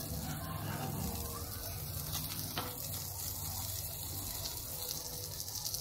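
Butter sizzling steadily as it melts and bubbles around a bread omelette frying on a hot cast-iron dosa tawa, with one light click about two and a half seconds in.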